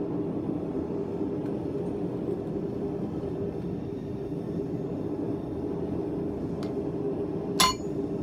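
A forge running with a steady low roar, and a single sharp metallic clink that rings briefly near the end.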